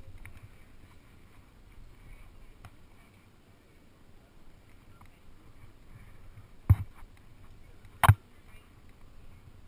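Two sharp knocks about a second and a half apart over a faint background, from a rock climber moving on the rock face.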